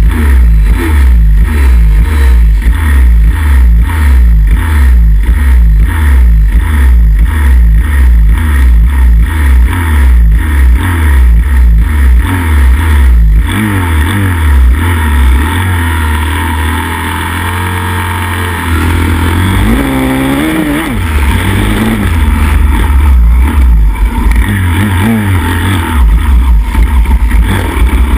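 Pit bike's single-cylinder engine close up, blipped over and over at the start gate, about one and a half revs a second, then held at steadier revs. Past halfway it drops back, then pulls away with its pitch rising and falling through the gears as the race gets going, other pit bikes running around it.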